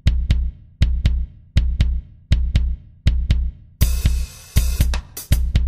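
Background music: a bass-drum beat struck in pairs, about one pair every three quarters of a second. About four seconds in, the fuller drum kit with cymbals and other instruments comes in.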